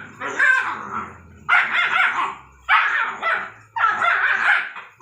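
A dog barking and yipping in play, a string of about five or six high-pitched barks with wavering pitch.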